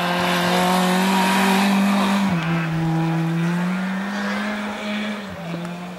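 Rally car engine running hard at high revs on a snow stage. Its pitch drops sharply about two seconds in, climbs again, and drops once more near the end as the sound fades.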